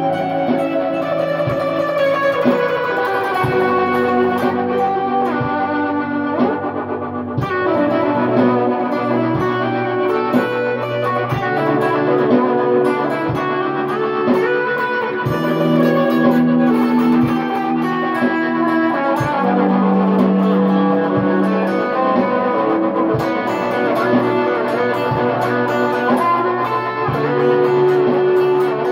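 Electric guitar, a Squier Telecaster played through OBNE Dark Star and Procession reverb pedals and an ARP-87 delay into a clean Boss Katana amp, improvising ambient music. Plucked notes ring out into long, overlapping sustained tones that layer into a wash.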